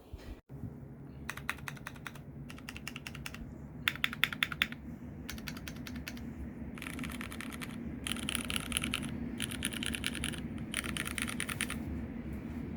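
Typing on a Tofu 65 mechanical keyboard with Cherry Hyperglide Brown tactile switches: a series of quick runs of keystrokes, each lasting about a second with short pauses between. A steady low hum runs underneath.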